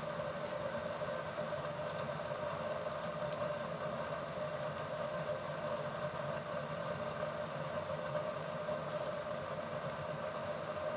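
Wood stove burning a full load of firewood: a steady rushing of flames and draft, with a few faint crackles from the burning wood.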